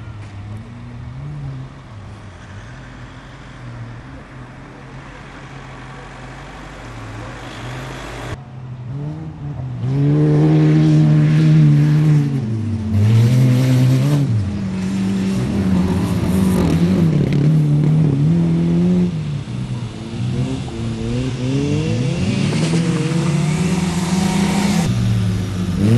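Autocross cars racing on a dirt track, their engines revving up and dropping back again and again through gear changes. The engines grow much louder about a third of the way in as the cars come closer.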